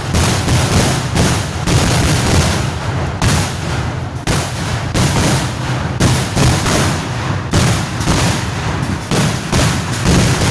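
Kerala temple-festival fireworks (vedikettu) going off in a rapid, continuous barrage. Loud bangs follow each other a few times a second and overlap into an almost unbroken rattle.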